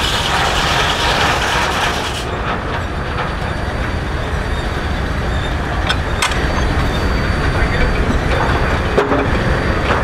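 Steam-engine-driven portable sawmill running. The saw cuts through wood with a bright hiss that stops about two seconds in, then the machinery keeps running, with two sharp knocks around six seconds in.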